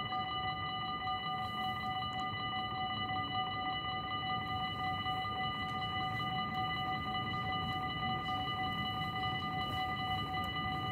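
Dutch railway level-crossing warning bell ringing without pause, a steady high ringing tone, sounding because the barriers are down for an approaching train. A low steady rumble runs underneath.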